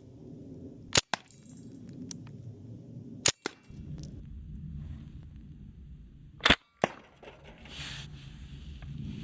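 Tippmann .68 caliber compressed-air launcher fired three times, about two to three seconds apart, each sharp pop followed by a fainter click.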